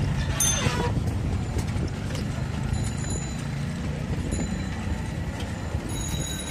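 Street traffic heard from a moving cycle rickshaw: a steady low rumble with light knocks and rattles from the rickshaw on the road, and brief high ringing tones about half a second in and again near the end.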